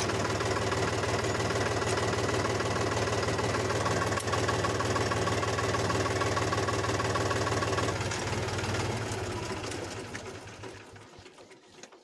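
Mini tractor's engine running steadily, fading away near the end.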